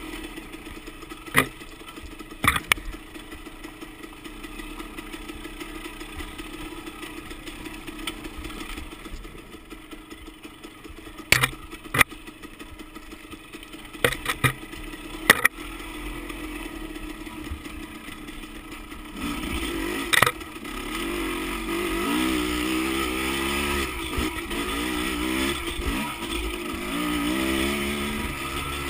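Dirt bike engine running low and steady, with a scattering of sharp knocks and clacks. About twenty seconds in it gets louder and revs up and down as the bike accelerates along the trail.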